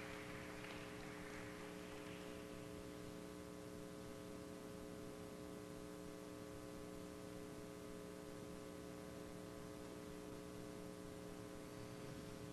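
Steady electrical mains hum of several low tones. A faint hiss fades out about two seconds in.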